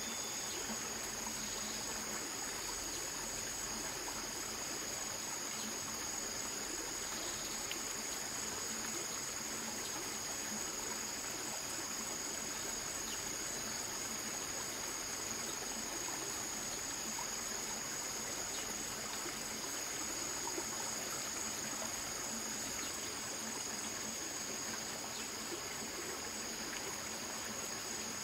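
A stream's water running steadily, with a steady high-pitched chorus of insects over it.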